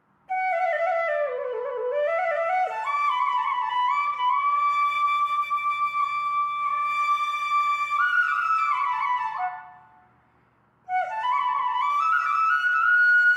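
Background music: a slow solo melody on a flute-like wind instrument. It falls through a phrase and settles on long held notes, pauses for about a second near ten seconds in, then climbs again to a long held note.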